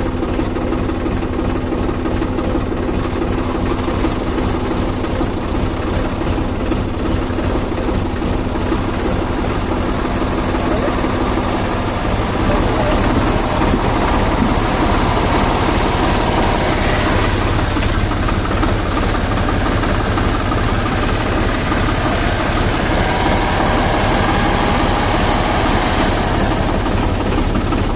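Swaraj 963 FE tractor's diesel engine running close by, at first at a steady idle. About twelve seconds in it grows louder and its pitch climbs as the engine is revved to pull a stuck SUV out of a muddy ditch on a tow rope.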